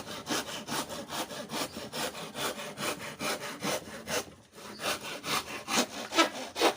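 Handsaw cutting through lawaan hardwood in quick back-and-forth strokes, about four or five a second, with a brief pause about four and a half seconds in before the sawing resumes.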